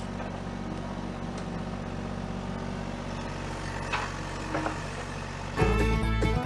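Kubota KX033-4 mini excavator's diesel engine running steadily, with a couple of light knocks. Fiddle-and-banjo bluegrass music comes in loudly near the end.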